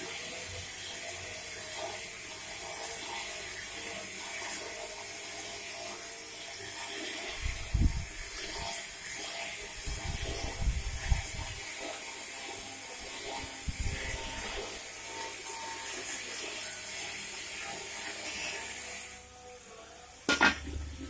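Motor-driven plate rolling machine running, its gear motor and chain drive whirring steadily while the steel sheet knocks and clanks in the rolls a few times. Near the end the machine sound stops and there is one sharp metal clank from the rolled steel cylinder.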